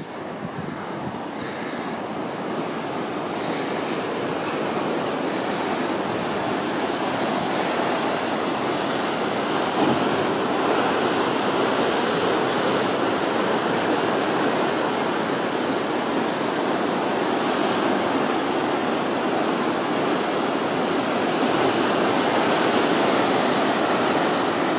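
Rough sea surf breaking in a continuous roar, swelling over the first few seconds and then holding steady.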